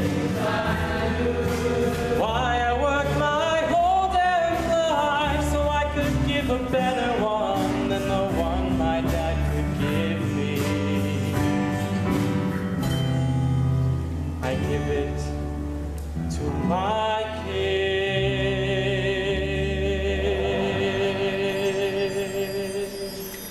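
Live musical-theatre ballad: a male voice sings the closing phrases over sustained accompaniment chords, finishing on a long held note with vibrato that fades out near the end.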